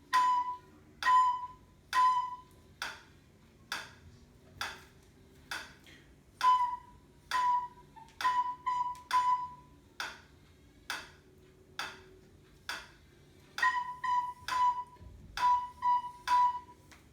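Recorder playing the note B in short tongued notes over a metronome ticking a little faster than once a second. Four-beat rhythm phrases alternate with four-beat gaps of metronome ticks alone, left for the learner to echo.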